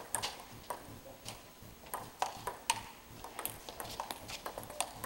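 Table tennis rally: the ball clicks sharply off the table and the paddles, about two hits a second in an uneven back-and-forth rhythm.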